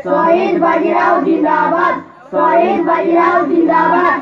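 Children singing a song in Odia in long drawn-out phrases, with a short break about two seconds in.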